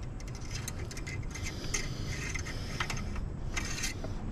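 Metal oil dipstick sliding and rattling in the dipstick tube of a Honeywell home standby generator's engine: a string of light metallic scrapes and clicks as the oil level is checked.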